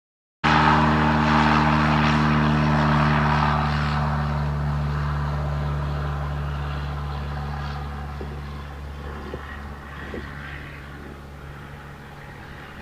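Propeller airplane's piston engine running at a steady pitch, starting suddenly about half a second in and fading out gradually.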